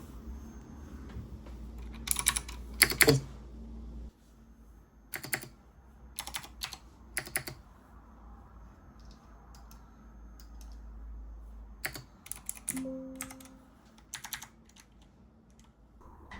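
Keys of a Cherry MX Blue mechanical keyboard pressed in scattered short groups of sharp clicks, not continuous typing, over a low hum. A brief low tone sounds about thirteen seconds in.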